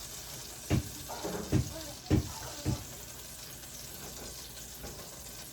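Butter sizzling faintly in a saucepan as it melts, a steady hiss. Four dull thumps come in the first three seconds, about half a second apart.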